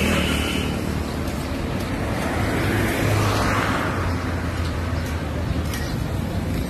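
Onion pakoras deep-frying in a large karahi of hot oil, a steady sizzle as they are stirred with a metal slotted spoon, over a constant low hum of street traffic.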